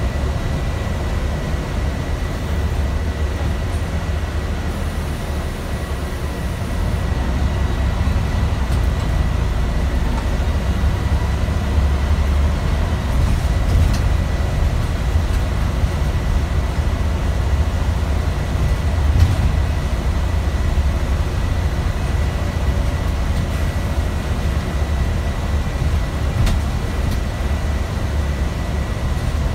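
Scania bus's engine and drivetrain running under way, heard from inside the passenger saloon: a heavy low rumble with a thin steady high whine over it. The rumble grows louder about seven seconds in and then holds.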